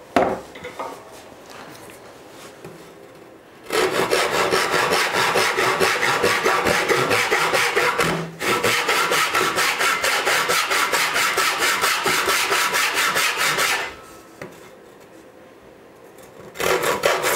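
Hand saw cutting across a wooden board to make the wall of a dado, in steady back-and-forth strokes. The sawing starts about four seconds in, breaks off for a moment near the middle, stops a few seconds before the end and starts again just before the end.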